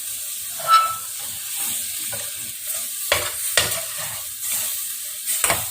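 Spice masala frying in a pan as it is stirred with a spoon: a steady sizzle, with a few sharp knocks and scrapes of the spoon against the pan.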